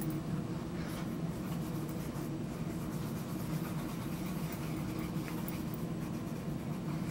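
Wool dauber rubbing leather dye into a leather knife sheath, a faint scratchy rubbing, over a steady low hum.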